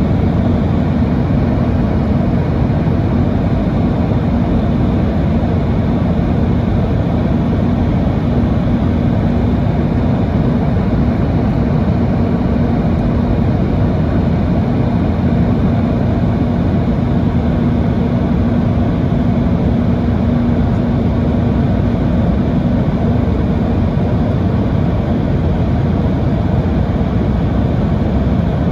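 Steady jet engine and airflow noise heard inside the cabin of a Boeing 737-900ER: an even, deep rumble with a constant hum on top, holding level with no spool-up or change.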